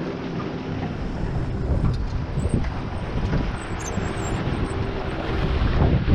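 Wind rumbling on the microphone over the steady drone of a motorboat engine running on the river.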